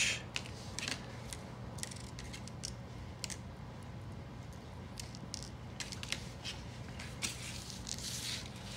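Faint, scattered light clicks of small metal parts (pivots, washers and bearings) being pulled out and set down as a balisong trainer is taken apart by hand, with a soft brushing near the end.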